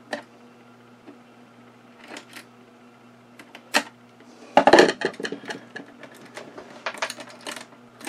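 Small metal latch hardware on a wooden sewing machine case being handled as the lid is pushed closed: a few separate sharp clicks, then from about halfway a busy run of metallic clicking and clatter.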